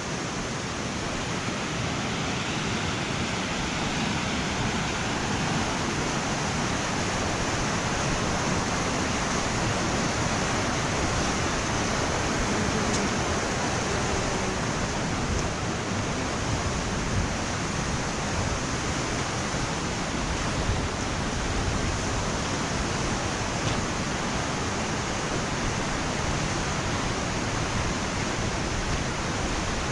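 Steady rushing of a creek running high after heavy rain, an even unbroken noise throughout.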